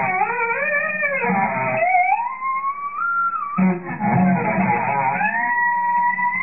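Electric guitar playing held notes that bend and slide up and down in pitch, settling near the end on a long sustained note.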